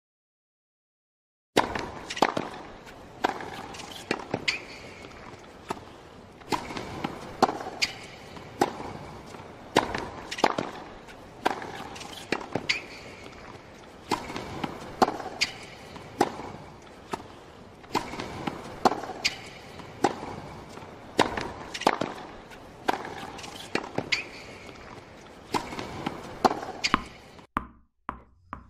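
A long run of sharp hits, roughly one every second or a little faster, each with a short ring after it, and a faint high tone that comes and goes every few seconds. The hits start about a second and a half in and stop shortly before the end.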